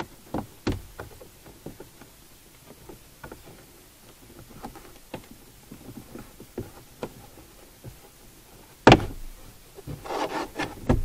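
Plastic interior trim panel of a car's cargo area being worked loose by hand: scattered clicks and creaks of the plastic and its clips, one loud sharp snap about nine seconds in, then a quick run of rattling clicks near the end.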